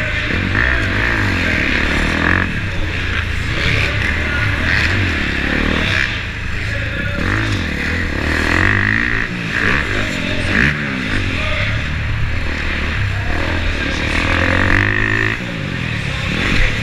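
Dirt bike engine revving up and falling back again and again as the rider works the throttle, heard onboard from a helmet-mounted camera with a constant low rumble under it.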